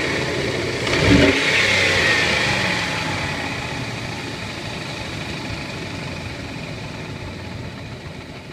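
2003 Dodge Ram's 4.7-litre V8 running with a tapping in the top end. It is blipped briefly about a second in and settles back to idle, then grows steadily fainter.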